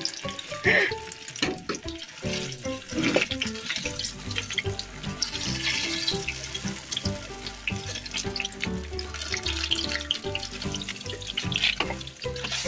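Banana fritters deep-frying in hot oil in a kadai: a steady sizzle with fine crackling. Background music joins about four seconds in.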